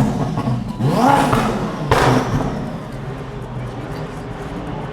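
Supercar engine revving, its pitch rising and falling about a second in, with a sharp crack near two seconds, then running steadily.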